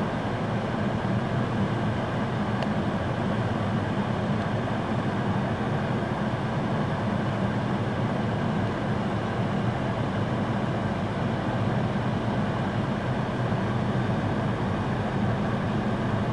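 Steady vehicle engine and road hum with a constant low drone and no change in level.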